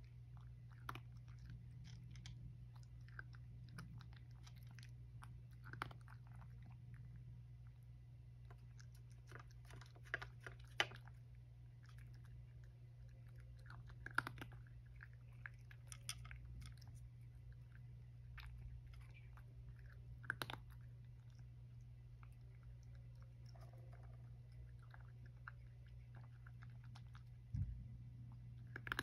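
A cat crunching dry kibble, with faint irregular crunches every second or so, over a steady low hum.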